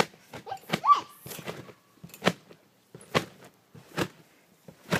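Children bouncing on a trampoline: a regular thump of feet landing on the mat roughly once a second, with a brief rising squeak about a second in.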